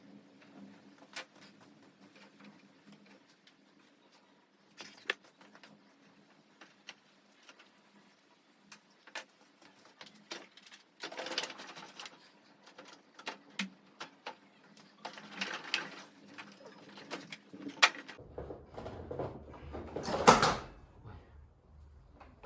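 Intermittent clicks, knocks and rustling of hand tools and metal parts while a Honda Dio scooter engine is being taken apart, with a louder scraping burst about twenty seconds in.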